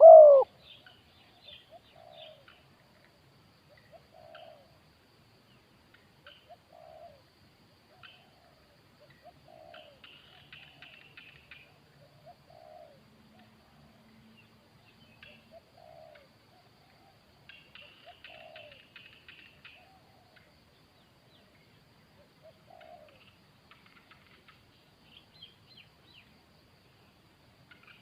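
Spotted doves cooing: one loud coo right at the start, then soft, short coos every second or two. Faint high chirps of small birds come in two brief bursts.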